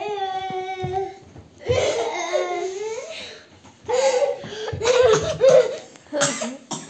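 A young child's voice: a drawn-out whining cry for about the first second, then short bursts of laughter.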